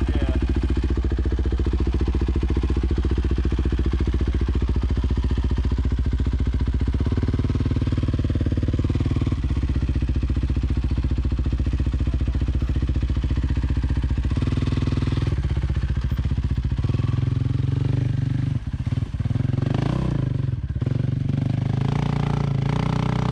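Yamaha dirt bike engine running low and steady, with a few step changes in pitch, then revving up and down in the last several seconds as the bike is ridden over rough ground, with some clatter.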